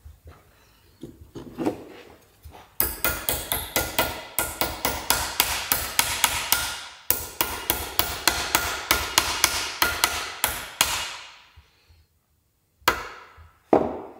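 Small hammer tapping on metal, quick light strikes about four or five a second for some eight seconds with a short break midway, then a few more strikes near the end: a part being tapped home into a bus engine's connecting-rod big-end cap held in a bench vise.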